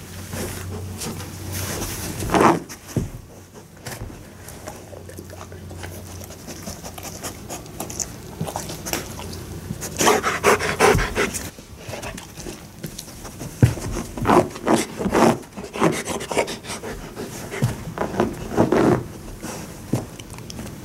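A dog panting and snuffling in irregular bursts as it works its nose and front paw under a couch for a treat, with its paw and body rubbing against the carpet and couch fabric.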